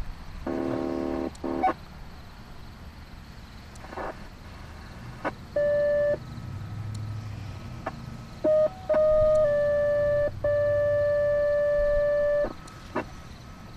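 Radio scanner: a short buzzy tone burst and squelch clicks, then electronic dispatch alert tones. There is a short beep about six seconds in, then a sequence of steady tones changing pitch from about eight and a half seconds, the last held about two seconds, paging responders ahead of a medical call.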